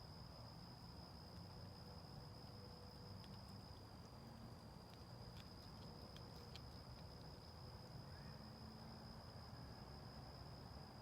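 Near silence: a faint steady high-pitched whine over a low hum, with a scatter of faint clicks through the middle.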